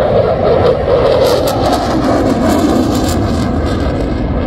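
Canard delta-wing fighter jet flying past, its engine noise sliding down in pitch as it goes by, with a crackle through the middle.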